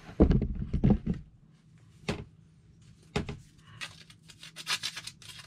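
Thumps from a plastic storage tote being handled and set down in the first second, then a couple of knocks. From about four seconds in, quick, scratchy strokes of 60-grit sandpaper hand-sanding a carved wooden fishing lure.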